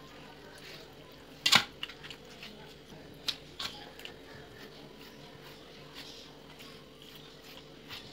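Kitchen knife scoring raw chicken on a plastic cutting board: a few sharp knocks of the blade striking the board, the loudest about one and a half seconds in, with two more a little after three seconds.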